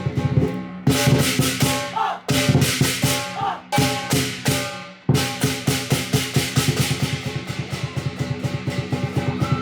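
Lion dance music: fast, even drum and cymbal strokes that break off briefly about two, three and a half, and five seconds in, each time leaving a fading ring before the beat comes back.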